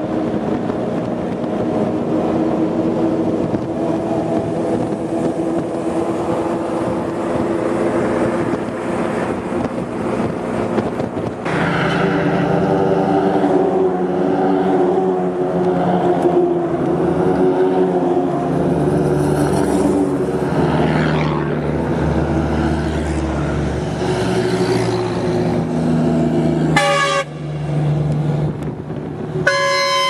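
A motor vehicle's engine running steadily, its note shifting and filling out about a third of the way in. Two short horn toots sound near the end.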